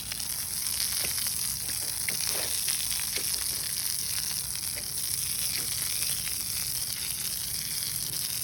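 Water spraying onto a freshly poured concrete slab, a steady hiss, wetting it so that it cures slowly and doesn't crack. A few faint ticks sound over the hiss.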